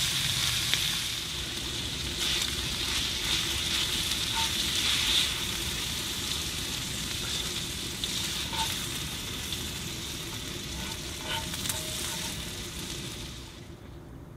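Pork belly and garlic frying on a Nambu Tekki cast-iron plate pan: a steady sizzle with scattered small pops, dying down near the end.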